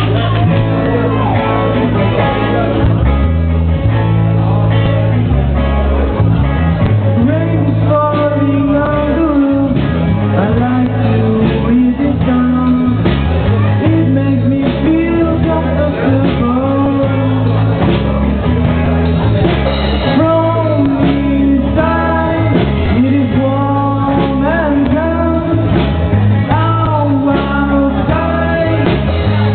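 Rock band playing live with amplified electric guitars, bass and a drum kit, a melody line gliding over a steady, repeating bass pattern.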